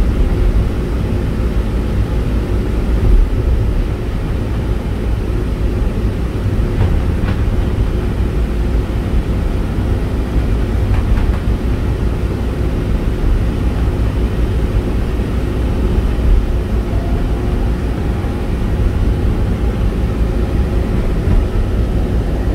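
Resort tram car running along its track, heard from inside the car: a steady low rumble of the car in motion.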